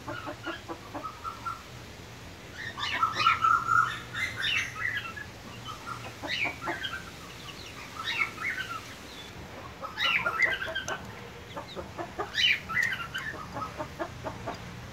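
Young chickens cheeping, clusters of short, quick chirps coming in bursts several times with quieter gaps between.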